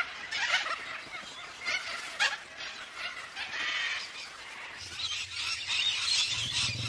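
A flock of little corellas calling, with several short harsh calls in the first few seconds and a denser chatter of calls after. A low steady hum comes in for the last couple of seconds.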